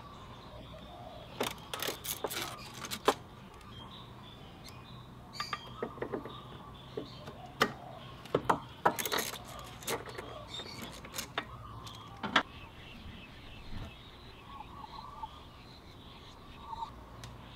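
Ratchet with a 12 mm socket on an extension working the exhaust mounting nuts of a Yamaha Zuma 125 scooter: irregular ratchet clicks and metal clinks in two bursts, the second longer. Faint birdsong underneath.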